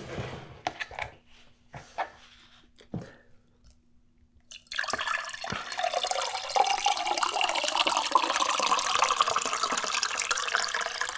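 Water poured from a height into a tall drinking glass: a steady splashing stream that starts about five seconds in and runs on, after a few light clicks and knocks.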